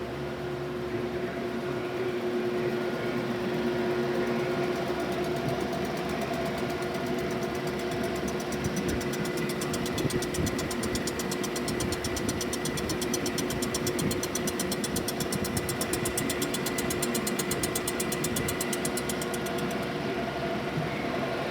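DeVlieg machine tool running with a steady mechanical hum while machining an exhaust manifold. About six seconds in, a fast, even ticking joins the hum, and it stops shortly before the end.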